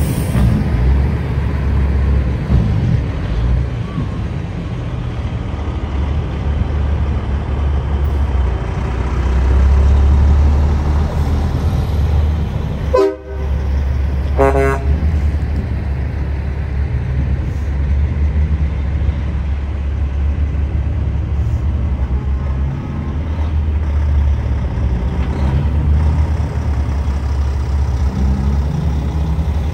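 Big trucks' engines running with a loud, steady low rumble. Around the middle a truck horn sounds twice in short blasts, a second or two apart.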